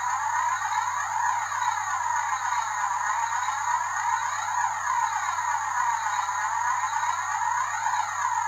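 Electronic background music: a sustained synthesizer sound with a slowly sweeping, phaser-like tone that repeats about every three seconds.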